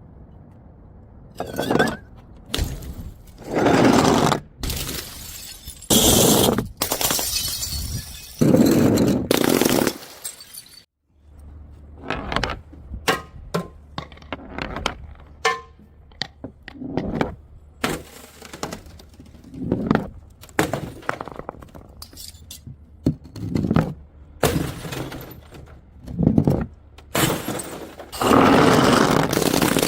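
Glass bottles thrown onto stairs, shattering in a series of loud smashes, with shards clinking and clattering down the steps. After a brief cut to silence about eleven seconds in, a run of smaller clinks and knocks follows, then another long smash near the end.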